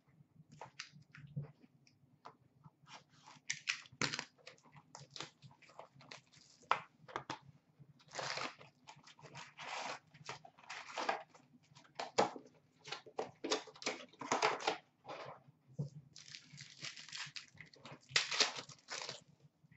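A cardboard box of hockey card packs is opened by hand and its foil packs are handled and torn open. It sounds like a run of short crinkles, rustles and rips, with longer tearing stretches about eight seconds in and again near the end.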